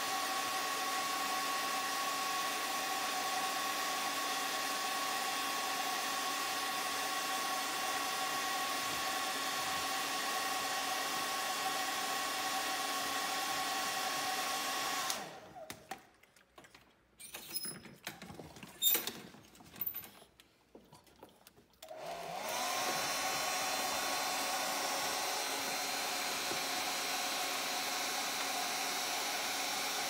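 Handheld hair dryer running steadily with a motor whine, then switched off about halfway through. A few seconds of quieter clicks and knocks follow, then the dryer is switched back on, its whine rising as the motor spins up before it settles to a steady run.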